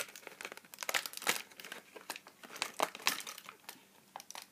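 Plastic doll packaging crinkling as it is handled and worked open, in a string of irregular crackles.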